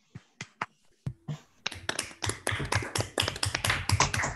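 Several people clapping over a video call, heard through their unmuted computer microphones. A few scattered claps come first, then from about one and a half seconds in, many overlapping claps run together.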